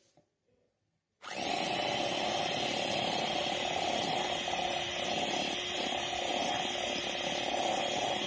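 Electric hand mixer switched on about a second in and running steadily, its beaters creaming butter and powdered sugar in a steel bowl.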